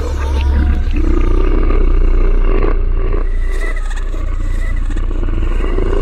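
Horror sound effect of a deep demonic growl and roar over a steady low rumble.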